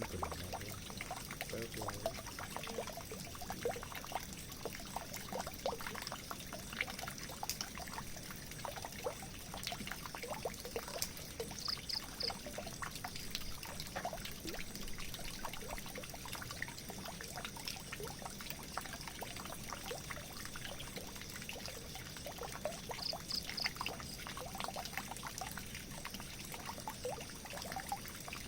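Water pouring and trickling into a drain: a steady rush with many small irregular splashes and gurgles.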